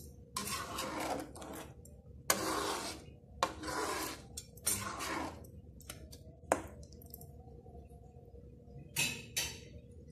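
Spatula stirring thick chicken curry in a wok, scraping the pan in a series of rough strokes with short pauses between, a sharp tap about six and a half seconds in, and two quick strokes near the end.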